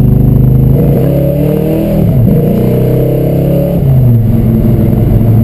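1971 Chevrolet Monte Carlo's V8, heard from inside the cabin, accelerating away. Its pitch rises, drops about two seconds in as it shifts up, and rises again. It settles into a steady cruise about four seconds in.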